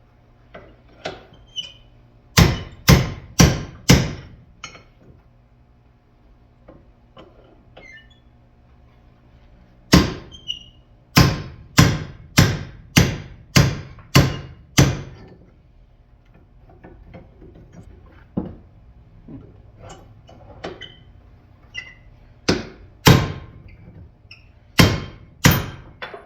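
Hammer blows on metal, driving the hinge pin out of a 1968 Firebird upper door hinge. They come in three runs of sharp, ringing strikes: about four quick blows, then about eight, then a few more near the end, with lighter taps between.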